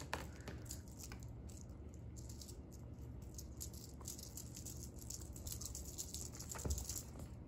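Faint rustling and small ticks of a feather-and-tinsel wand cat toy being swished back and forth and batted at by a cat.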